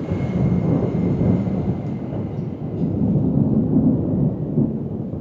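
Rolling thunder rumbling low and continuously, swelling in loudness about a second in and again around three to four seconds in.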